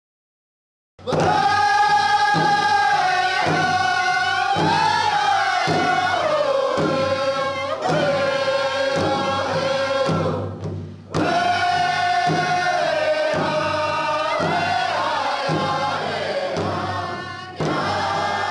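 A powwow drum group: several singers singing a high, descending song line in unison over a large rawhide powwow drum struck together by several drummers in a steady beat of about one stroke a second. It starts about a second in, drops out briefly about ten seconds in and comes back.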